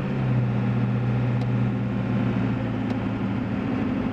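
In-cab sound of a Ford F350's 7.3 Powerstroke turbo-diesel V8 running at road speed, mixed with the hum of 315/75R16 Mickey Thompson Deegan 38 mud tires: a steady drone with low engine tones. The engine note shifts about three seconds in.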